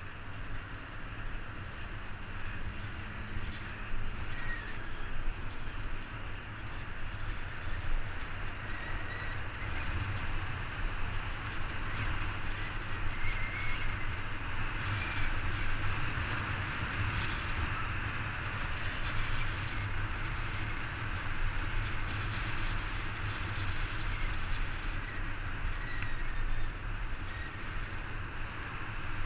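Wind rumbling on the camera microphone of a moving bicycle, over the steady hiss of expressway traffic running alongside the path. A few faint, short high chirps come and go.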